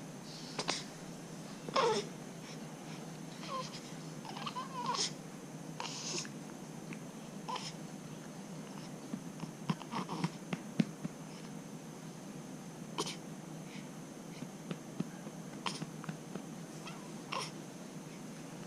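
A baby making short, scattered vocal sounds over steady room noise. The loudest, about two seconds in, falls in pitch, and there are small sharp clicks around the middle.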